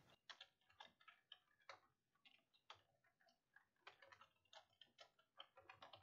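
Faint computer keyboard typing: single keystroke clicks at an uneven pace, with short pauses between runs.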